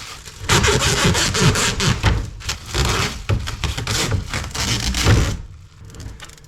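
Wooden parts being handled and rubbed together: irregular scraping strokes with light knocks, stopping about five seconds in.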